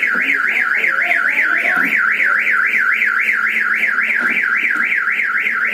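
Car anti-theft alarm siren sounding, likely the Tata Nano's: a loud tone warbling up and down about four times a second, which cuts off suddenly at the end.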